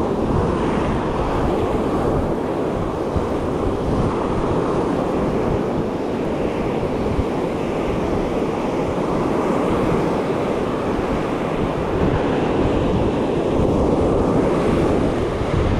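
Ocean surf washing on the beach, with wind buffeting the microphone; the noise swells a little near the end.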